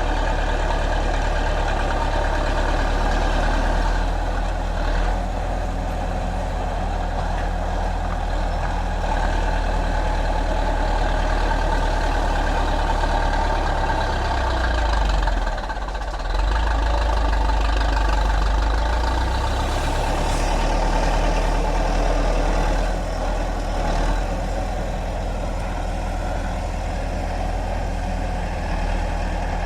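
Heavy diesel engine of a bulldozer running steadily, its low hum briefly dipping and shifting pitch about halfway through.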